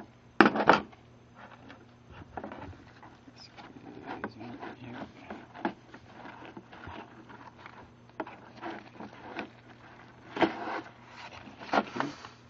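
Clicks, rattles and rubbing from a set of Allen wrenches being handled in their holder: a sharp cluster of clatter about half a second in, scattered small clicks after, and louder clatter again near the end.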